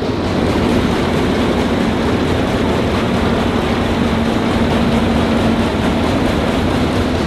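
Claas Matador Standard combine harvester running at speed on its six-cylinder Perkins engine with the threshing works engaged but empty. The whole machine rattles and clatters, because the chains and feeder are running dry without crop; the owner takes this for normal in a machine of its age.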